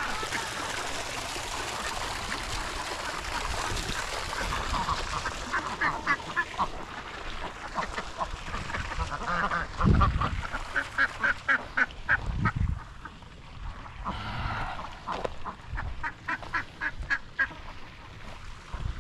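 Ducks quacking in several quick runs of short, repeated calls. A dull thump comes about halfway through.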